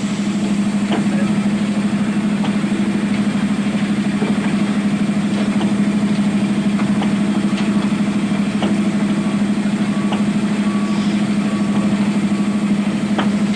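Zoomlion ZE215E excavator's diesel engine running at a steady hum, with scattered knocks from the work. In the last few seconds a warning alarm beeps about every half second.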